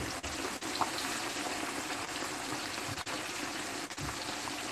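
Breaded chicken deep-frying in hot oil in a pan, with a steady, vigorous sizzle. A dull knock comes at the very start and another near the end.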